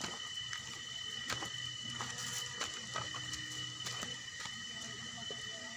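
Footsteps scuffing and crunching irregularly on a downhill hiking trail, over a steady high-pitched hum.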